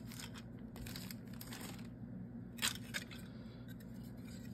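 Plastic bag crinkling as the plastic model-kit parts on their sprues are tipped out of it, with two sharp clicks a little past halfway as the parts knock together.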